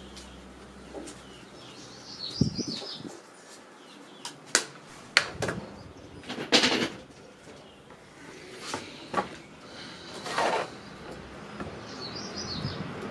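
A bird chirps briefly twice, near the start and near the end. In between comes an irregular run of sharp knocks and short scuffs on a wooden patio table and bench as a person comes up and sits down.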